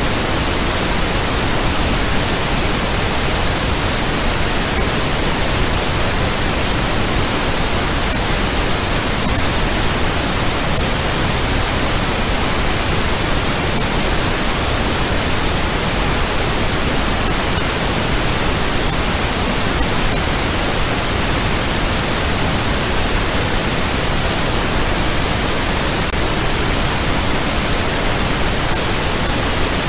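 Steady, even hiss of generated noise, like pink noise, spread from deep to high pitches without any change or break.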